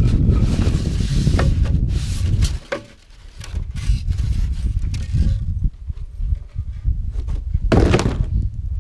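Cardboard box and styrofoam packing being handled as a large shipping box is pulled up off a foam-packed tailgate, with scraping, rustling and clicks over a low, uneven rumble. Near the end comes a brief louder scrape or thump as something is set down on concrete.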